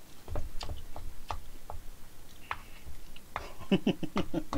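A spoon clicking and scraping against a bowl of jajang noodles as it stirs them, with a few soft thumps, then a man chuckling in quick repeated bursts from a little past three seconds in.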